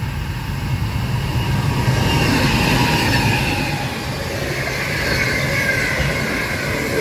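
Freight train passing at speed, its wagons rumbling over the rails. From about two seconds in there is a high, wavering squeal from the wheels.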